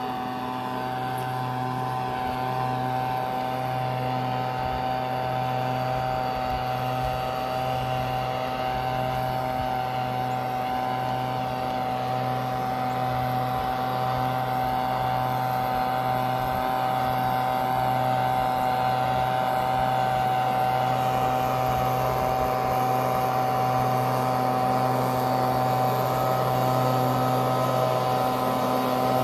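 Gas-powered leaf blower engine running steadily, heard from about 165 feet away as a distant drone that grows gradually louder as it is approached.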